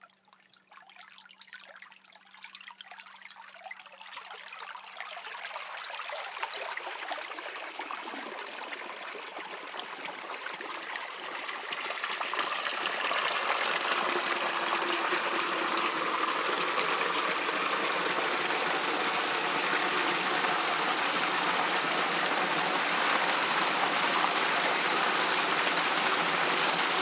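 Running water, faint at first and growing over about the first twelve seconds into a steady, full flow.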